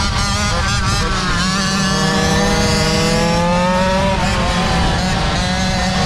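Small two-stroke engines of GoPed Go-Quad mini karts running at speed. The engine pitch climbs, drops sharply about four seconds in as the throttle comes off, then climbs again, with a second, steadier engine note underneath.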